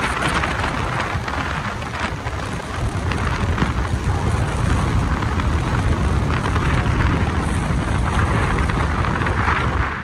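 Steady rush of wind on the microphone mixed with road noise from a moving car.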